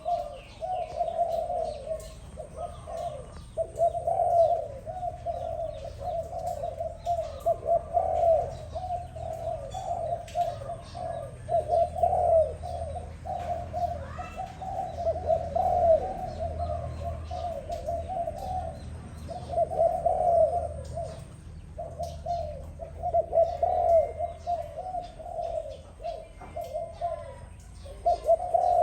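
Doves cooing almost without a break in a dense, warbling run, pausing briefly a few times. Faint short high chirps sound over it.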